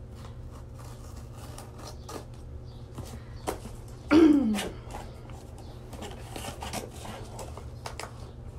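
Cardboard box being opened by hand: scattered crisp rustles, taps and tearing of the flaps and packaging. About four seconds in, a short, loud vocal sound that falls in pitch.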